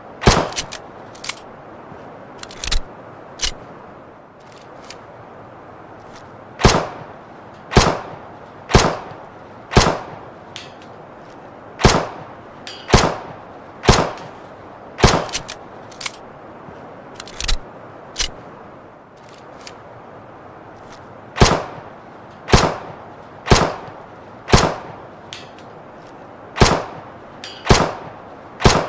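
Luger pistol firing single shots, sharp cracks each with a short ringing tail, about one a second in runs broken by pauses of a few seconds, with a few fainter clicks between.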